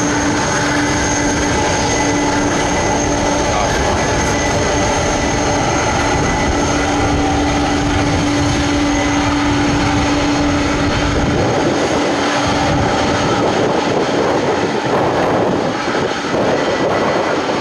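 Jet airliner engines running loud and steady. A dense rushing noise with a steady low hum and a faint high whine running through it.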